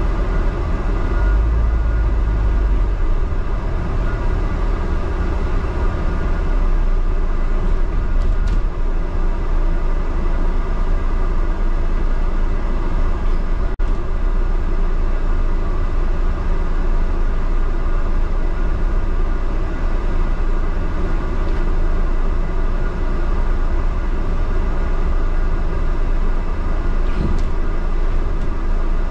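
Steady rumble of a double-decker bus driving, heard from inside on the upper deck: drivetrain and road noise with a heavy low end.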